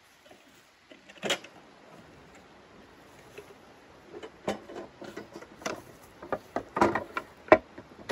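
Metal knocks and clatter from a folding steel frame being carried and handled. One loud knock comes about a second in, then a busier run of clanks and clicks over the last four seconds, with the sharpest knock near the end.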